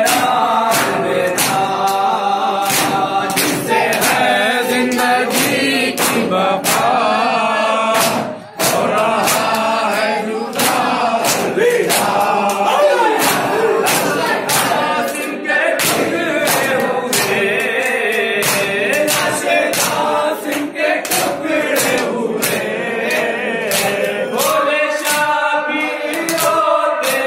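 Men chanting a noha (Urdu Shia lament) in chorus, led over a microphone, with a steady beat of open-hand chest-beating (matam) about twice a second.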